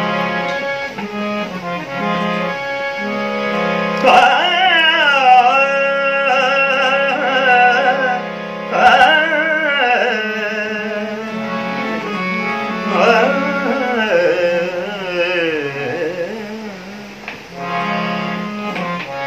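Harmonium playing held chords and a melody under a steady drone. From about four seconds in, a man sings over it in long phrases that slide and bend in pitch.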